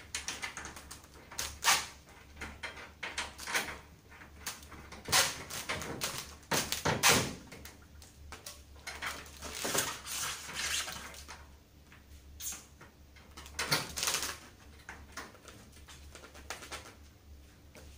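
Glass front panel being fitted onto an electric fireplace insert and screwed in place: irregular clicks, knocks and scrapes of the panel and its mounts being handled.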